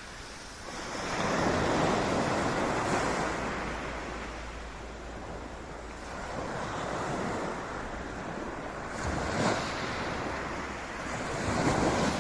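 Sea waves breaking and washing on the shore, swelling in about three surges, with a sharper crash about nine and a half seconds in, and wind buffeting the microphone underneath.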